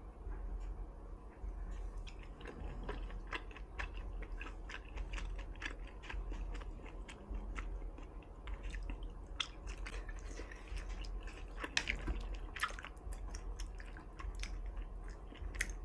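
Close-miked chewing of a hot pot mouthful: wet mouth clicks and smacks, several a second, growing louder and busier toward the middle and end.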